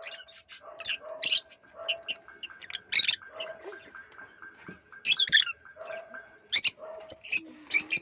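Caged parakeets and other aviary birds calling all at once: quick, sharp squawks and chirps, with short lower notes in between.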